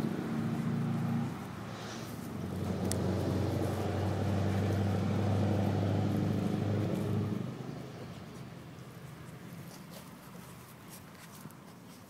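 An engine running with a steady low hum. It drops away about a second in, comes back louder and holds, then fades out after about seven and a half seconds.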